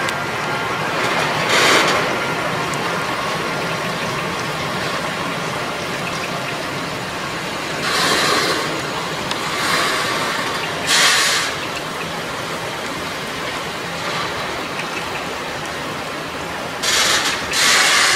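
Freight train of bogie tank wagons rolling steadily past, a continuous rumbling hiss of wheels on rail. Brief louder rushes come every few seconds, about six in all, two close together near the end.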